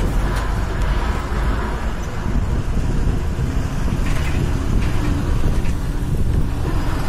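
Steady running rumble of a moving road vehicle, its engine and tyres heard from on board.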